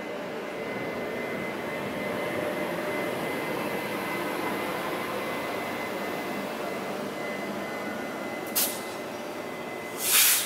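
Taiwan Railways E200-series electric locomotive moving slowly past, a steady whir of its motors and blowers with a thin high whine. Two short sharp hisses come near the end, the second the louder and longer.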